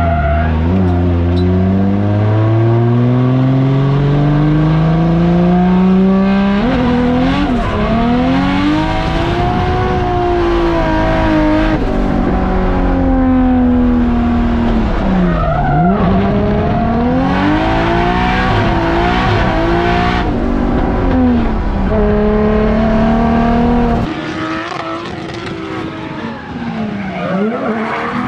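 Drift car engine revving hard through a run while the tyres squeal. The engine's pitch climbs steadily for about six seconds, then rises and falls repeatedly with sharp dips in revs. Near the end the sound drops in level and thins out.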